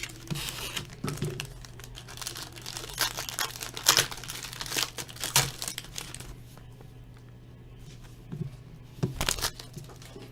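Trading card pack wrapper crinkling and tearing as it is opened and the cards are pulled out: dense crackling for about six seconds, then quieter, with a couple of sharp rustles near the end.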